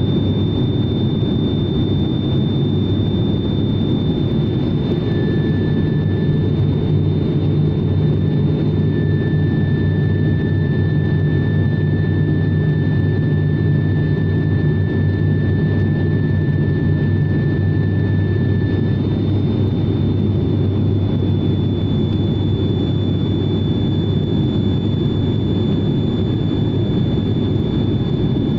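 Steady drone of a turboprop airliner's engines and propellers heard from inside the passenger cabin, with a thin high whine over it. A second, lower whine comes in about five seconds in and fades out around nineteen seconds.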